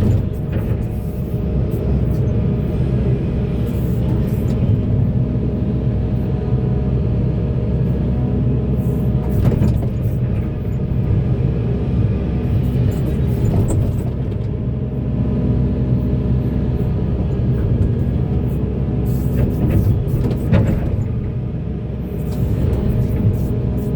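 Volvo EC480DL excavator's diesel engine running steadily under working load, with a few sharp knocks from the machine about ten, fourteen and twenty seconds in.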